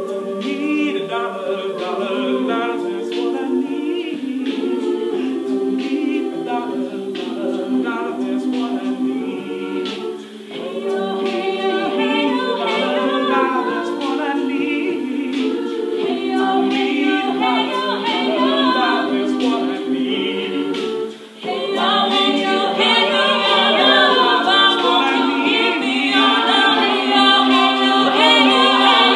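Mixed-voice a cappella group singing a pop mashup in close harmony: a lead voice over sustained backing chords. The singing breaks off briefly about ten seconds in and again about twenty-one seconds in, and comes back fuller and louder for the last several seconds.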